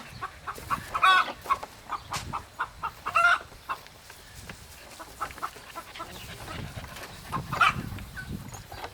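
Chickens clucking: a run of short clucks, with louder calls about a second in, about three seconds in and near the end.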